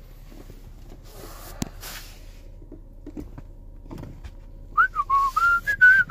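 A person whistling a tune, starting almost five seconds in with short notes that step up and down. Before it there is only a faint low hum with a few light clicks.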